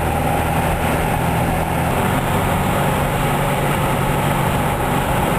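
1964 VW Beetle's air-cooled 1600 cc flat-four running steadily under way, heard from inside the cabin, its exhaust leak freshly repaired. The engine note shifts up about two seconds in.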